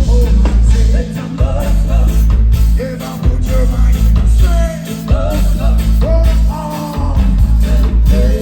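Live band music with a sung lead vocal over a heavy, pulsing bass line, in a ska-inflected reggae style.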